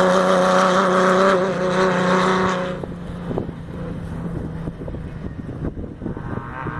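Off-road race vehicle's engine running hard at a steady high pitch as it passes close, then dropping away sharply about three seconds in to a quieter, rougher engine sound as it moves off.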